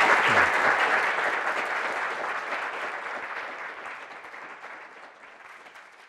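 Audience applauding, loud at first and fading away over several seconds.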